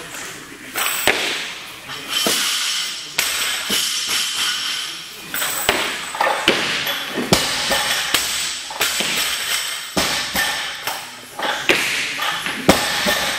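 Music playing, with a few sharp knocks standing out from it.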